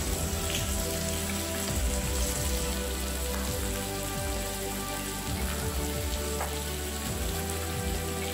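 Bacon, chicken and zucchini sizzling on the plate of an electric grill and hot pot, a steady frying crackle.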